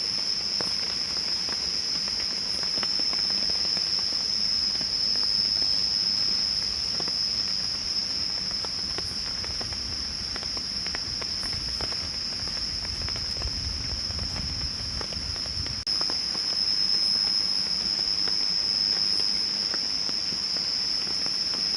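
A steady, high-pitched chorus of night insects droning without a break, with scattered faint ticks and a low rumble for several seconds around the middle.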